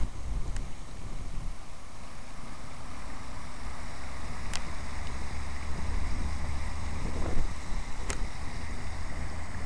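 Water from an outdoor fountain spilling over its rim and splashing, a steady rush, with wind rumbling on the microphone.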